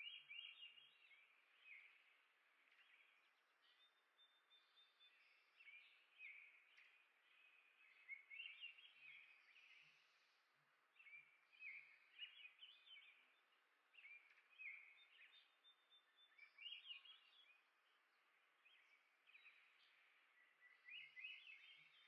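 Faint house finch song: short, warbling phrases that slide up and down in pitch, repeated every few seconds over a quiet background hiss.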